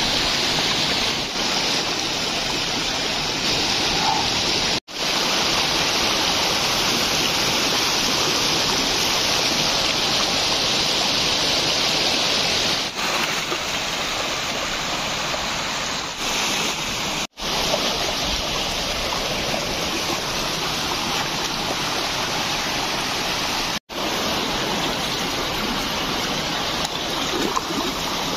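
Shallow river rapids rushing steadily over rocks, with some splashing as a person wades and strikes at the water with a wooden stick. The sound cuts out for an instant three times.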